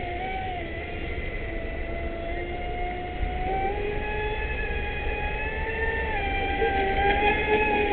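Leopard 4082 2200Kv brushless motor of a Traxxas Spartan RC boat on 6S LiPo, running at speed with a steady high whine. Its pitch shifts up and down a little as the throttle and load change.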